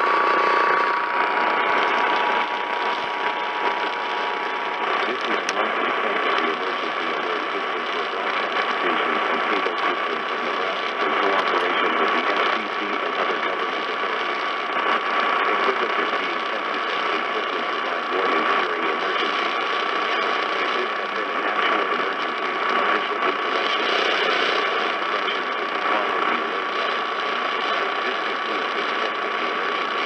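AM radio static from an Eton receiver tuned to 1110 kHz: a steady crackling hiss, with no programme audio coming through. A few steady whistling tones near 1 kHz at the start; the lower ones fade out about four seconds in.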